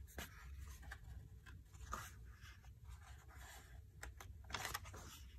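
Faint handling of an old paper catalogue: fingers brushing the pages with soft rustles and small ticks, then a page being turned with a louder rustle about four and a half seconds in. A low steady hum lies underneath.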